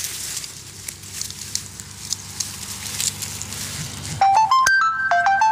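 Dry reed stems crackling and rustling as they are pushed aside, then about four seconds in a mobile phone ringtone starts, a melody of bright stepped beeps that is the loudest sound.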